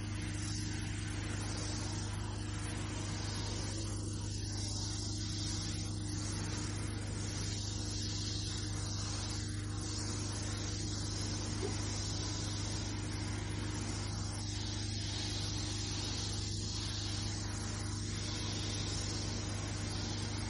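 Carpet-cleaning machine running with a steady, even hum, and the hiss of cleaning solution spraying from a wand onto a carpet stain, swelling and easing as the wand is worked over the spot.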